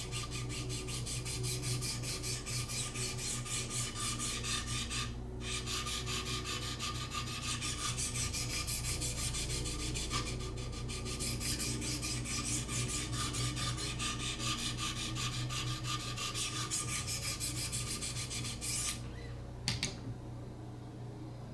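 Wicked Edge 600-grit diamond stones stroked along a Benchmade Pagan's chisel-ground blade, a quick, even rasping scrape, stroke after stroke. The strokes break off briefly about five seconds in and stop near the end, where a couple of light clicks follow. A steady low hum runs underneath.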